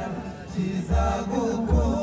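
Live Rwandan traditional music: a group of voices chanting and singing together, with a deep beat twice in the second half.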